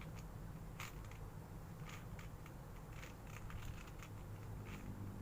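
Plastic 4x4 Rubik's cube being turned by hand: faint, irregular clicks as the layers are twisted, over a low steady hum.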